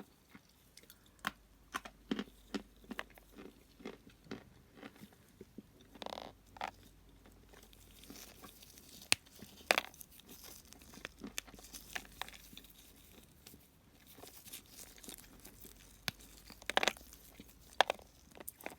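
Dry clay being bitten and chewed close up: irregular sharp crunches and snaps, a few much louder than the rest.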